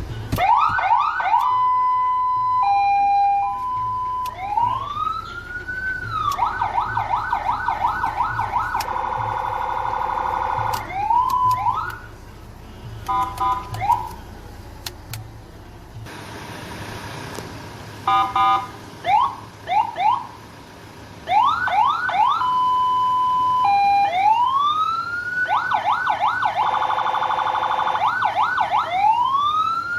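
Senken CJB100BD electronic siren run through its tones in turn: slow rising-and-falling wails, fast yelps, a hi-lo two-tone and short chopped beeps. After a quieter stretch about halfway through, the sequence runs again.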